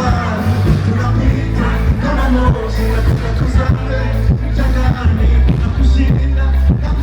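Loud live concert music over a PA: a heavy bass line and a steady beat, with singing.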